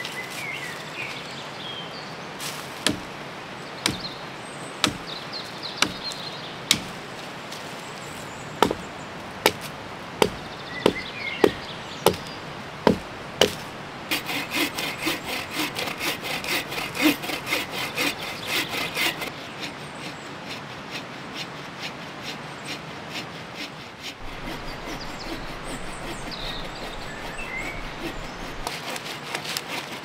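Dead firewood being worked: about a dozen sharp wooden knocks roughly once a second that grow louder, then about five seconds of rapid hand-saw strokes through a branch. A steady rush of the river runs beneath.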